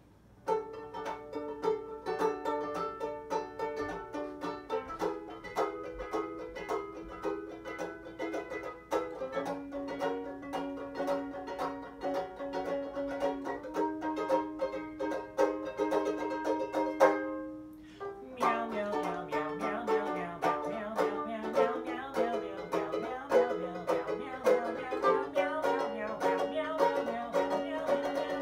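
Banjo ukulele strummed in chords, a bright plucked tune. The playing stops briefly a little past halfway, then comes back busier.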